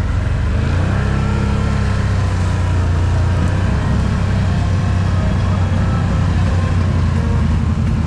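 ATV engine, likely the Can-Am Outlander 1000's V-twin, running at low speed. Its pitch rises about a second in and then holds steady.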